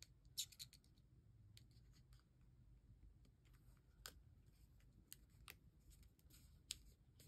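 Near silence with a few faint paper rustles and small taps as fingers press a stamped paper flower cluster onto a card.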